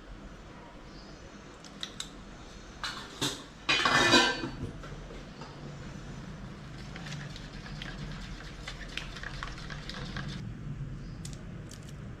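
Kitchen utensils clinking and scraping against cookware. There is one loud clatter about four seconds in, then a softer run of small scrapes and taps.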